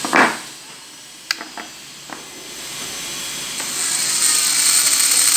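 Dental lab micromotor handpiece with a white mounted stone: a short loud burst right at the start, a few light clicks, then the motor spins up and grinds into the stone model's base, cutting retention grooves, loudest in the last second and a half.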